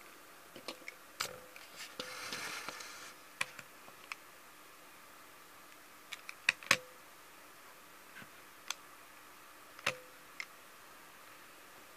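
Small clicks and knocks of die-cast model cars being handled and set onto the ramps and decks of an Oxford Diecast model car transporter, with a brief scrape a couple of seconds in. The loudest knocks come a little past halfway and near the end.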